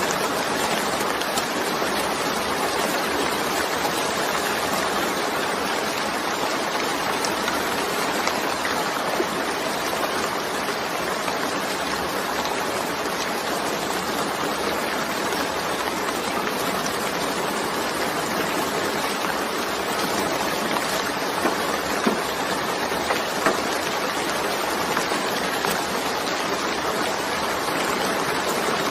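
Steady heavy rainfall, an even hiss with a few faint individual drop ticks.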